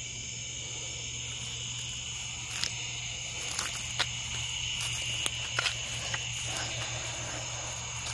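Steady high-pitched chorus of crickets and other insects. From a few seconds in come scattered light clicks of footsteps on grass and dry leaves.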